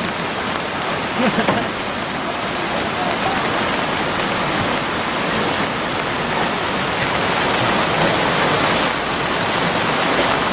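Steady rushing noise at an even level, with a faint voice about a second in.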